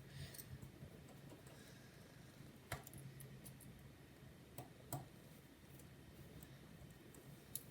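Faint clicks and ticks of small metal parts being handled: a precision screwdriver working at laptop screws, with two sharper clicks about three and five seconds in, over a low steady hum.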